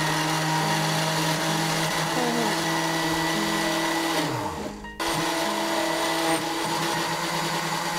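Countertop electric blender running, churning a thick mixture of sour yogurt, sugar and spices. About four and a half seconds in the motor is switched off and winds down with a falling pitch, then it is switched on again straight away and runs on.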